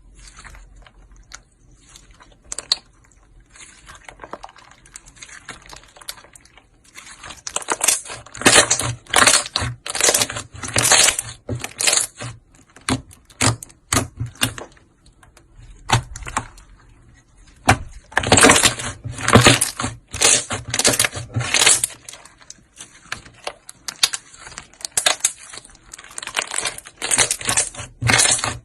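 Slime being pressed and worked by hand, giving runs of quick clicks and crackly pops. Quiet at first, it grows loud about a quarter of the way in and comes in repeated bursts of clicks.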